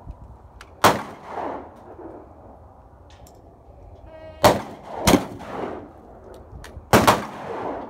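Shotguns fired at clay targets: four sharp shots, two of them about half a second apart near the middle, each followed by a short fading echo.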